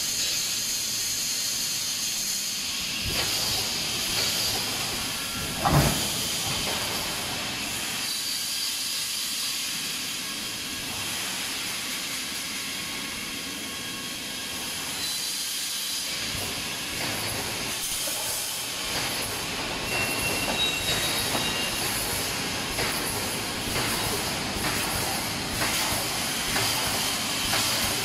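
Automatic wire mesh welding machine running: a steady hiss from its pneumatic air cylinders under repeated mechanical knocks and clanks as the welding and mesh-handling gear cycles. There is one louder thump about six seconds in, and the knocks come more often in the second half.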